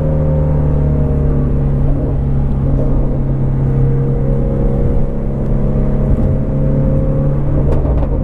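2019 Shelby GT350R's 5.2-litre flat-plane-crank V8 running at a steady cruise: a constant engine drone whose pitch drifts only slightly, with no hard revving.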